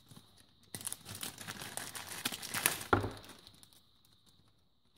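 Thin resealable plastic bag crinkling as it is pulled open and handled, with a thump about three seconds in as something is put down on the table.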